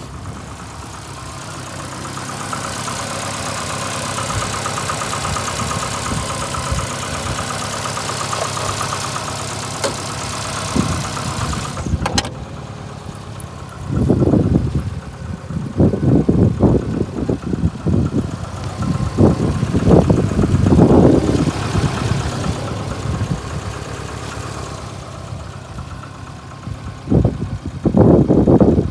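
VAZ 2115's 8-valve four-cylinder engine running unevenly. The owner says it misfires and knocks, with a rubbing sound once warm, and can't find the cause since a head gasket failure at the first cylinder. A sharp click comes about 12 seconds in, and loud irregular bursts of noise cover the engine in the second half.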